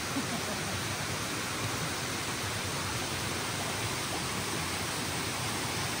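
Steady rush of stream water running over rocks into a pool: an even, unbroken hiss.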